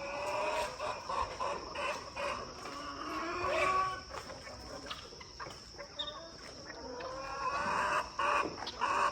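Chickens clucking and calling, several birds at once, their calls overlapping.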